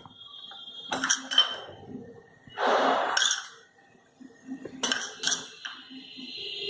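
Metal spoon clinking against a dish, several sharp clinks a second or two apart, with a short scraping rasp about three seconds in, as butter and pav bhaji masala are spooned onto the pav.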